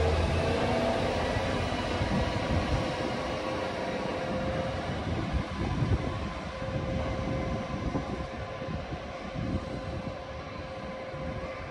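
KiHa 40 diesel railcar pulling away under power. Its engine note climbs as it sets off, then holds a steady drone that slowly fades as the train recedes.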